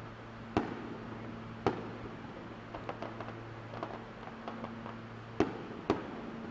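Aerial fireworks shells bursting: four sharp bangs, one about half a second in, another a second later, and two close together near the end, with smaller pops and crackles between them.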